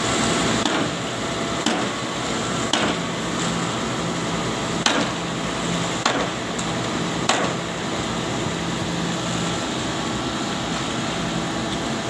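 Concrete mixer truck running steadily with a constant hum, broken by about six sharp knocks in the first seven seconds.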